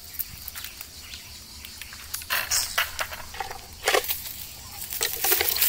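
Dry leaf litter and twigs rustling and crunching in a few short bursts, about two and a half seconds in, at about four seconds, and near the end, with scattered small clicks in between.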